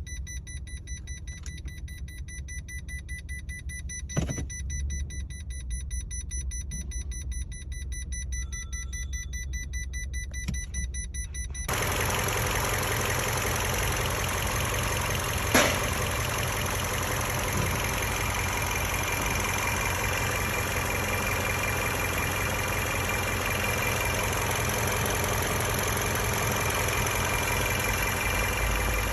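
Toyota Camry hybrid's 2.5-litre four-cylinder engine starting about twelve seconds in and then idling steadily, on a car with a check-engine misfire and vibration complaint. Before it starts there is only a low hum with a couple of clicks and a short beep.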